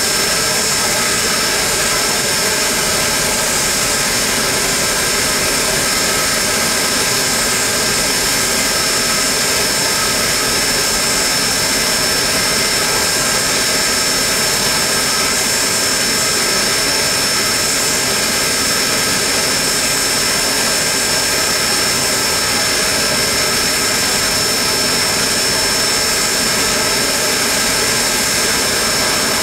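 Pennsylvania Railroad B4-class 0-6-0 steam locomotive 643 standing at idle under steam: a steady hiss of steam with a constant high whine, no exhaust beats.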